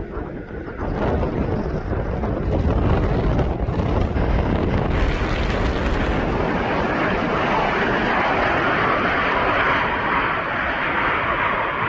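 An airplane passing with a loud, steady engine rush that swells about a second in, with wind buffeting the microphone.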